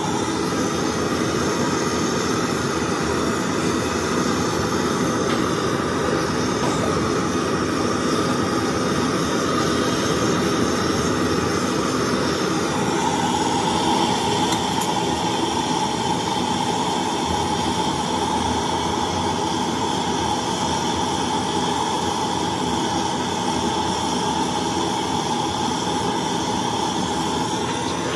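Steady roar of a blowtorch flame burning, with a tone in it that strengthens about halfway through.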